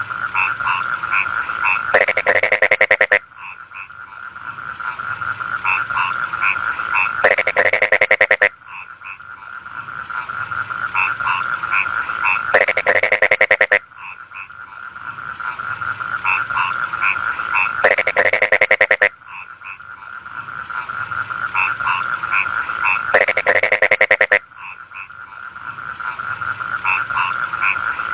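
Frogs calling in a rice field: a steady high-pitched chorus, with a loud, rapid pulsed croaking call about every five seconds, five times over.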